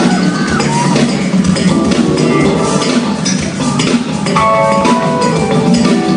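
Live band music with a drum kit and percussion to the fore, in a gamelan-fusion style; a few sliding pitched notes near the start and held pitched notes a little past the middle.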